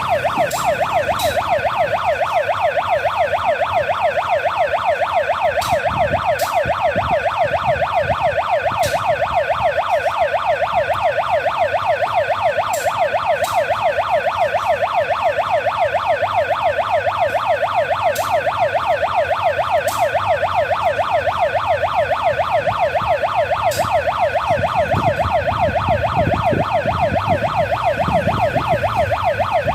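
Electronic warning siren of a manual railway level crossing, sounding like an ambulance siren, warbling fast up and down without a break. It is the crossing's alarm that a train is coming.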